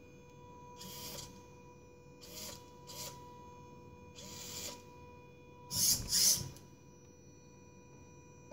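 Electric window motors and servos of a home-built BB8 drive mechanism running in short bursts under controller commands, about six bursts in all, the loudest pair about six seconds in. A faint steady whine runs underneath.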